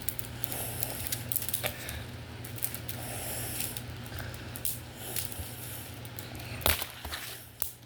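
Plastic Lego pieces clicking and rattling as a home-built Lego butterfly knife is flipped open and shut, with one sharper clack about two-thirds of the way through. A steady low hum runs underneath.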